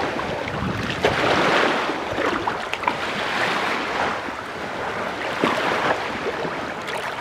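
Shallow water sloshing and lapping around hands and legs in swells every second or two, as a caught snook is held in the water to revive it before release.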